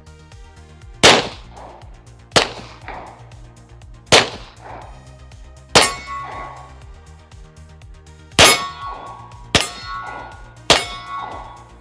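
Walther P38 9mm pistol fired about eight times at an uneven, unhurried pace, each shot followed by the ringing clang of a struck steel target.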